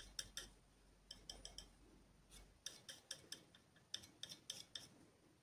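Small flat brush dabbing and stroking acrylic paint onto a small canvas: faint, short taps in little irregular groups.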